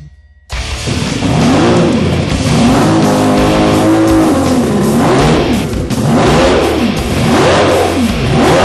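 400 hp Evinrude two-stroke V6 racing outboard with Wolf V500 fuel injection, run in a test tank. It starts about half a second in and is revved again and again, its pitch rising and falling in repeated blips.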